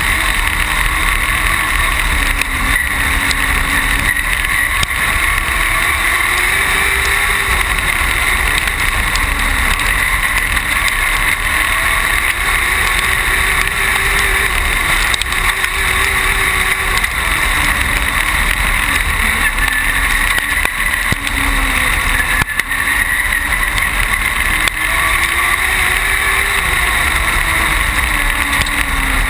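Dwarf race car's motorcycle-derived engine heard from on board, running hard under racing load. Its pitch rises and falls every few seconds as the throttle goes on along the straights and off into the turns.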